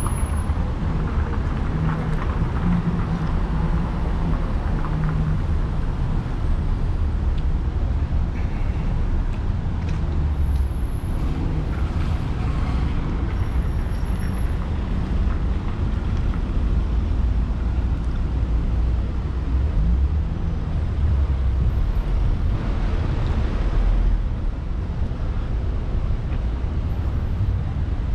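Steady road traffic on a busy city street: cars, vans and trucks passing, with engine rumble and tyre noise. A heavier vehicle's low engine hum stands out a few seconds in.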